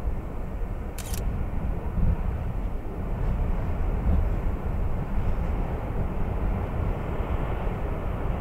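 Gusty wind buffeting the microphone in an open field under a tornadic storm, a steady low rumble that rises and falls, with one brief sharp click about a second in.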